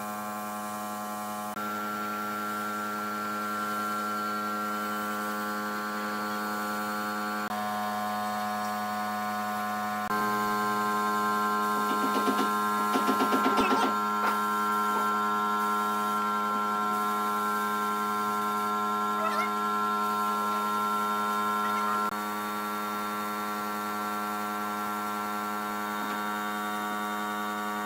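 Compressed-air spray gun spraying finish, a faint hiss over a steady droning hum from the shop's air equipment. The hum steps up and down in level a few times, and a quick fluttering rattle comes about twelve seconds in.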